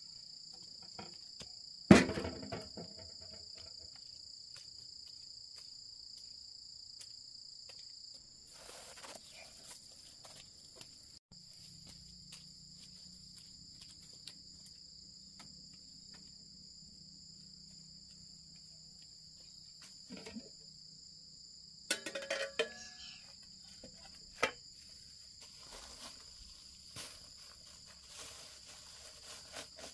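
Steady high chirring of crickets throughout. About two seconds in, a loud metallic clank with a short ring as a metal cooking pot is set down on concrete; near the end, a few lighter metal clinks as the pot lid is lifted off and laid down.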